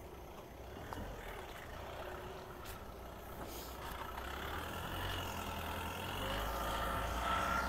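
Motor vehicle engine on a street, faint at first and growing louder through the second half, with a steady whine over a low rumble.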